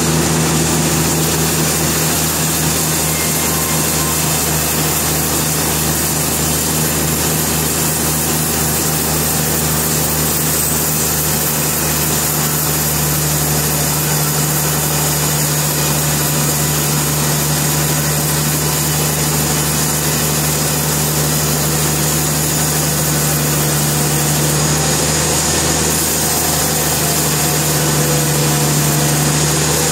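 Sawmill machinery running steadily, a loud continuous motor drone with a strong low hum and no break.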